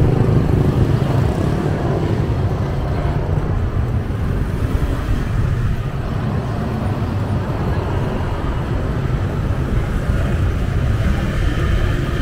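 Busy street ambience: a steady rumble of road traffic going by.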